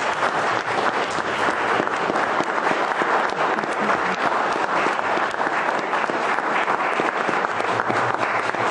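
Applause from a roomful of people, many hands clapping steadily.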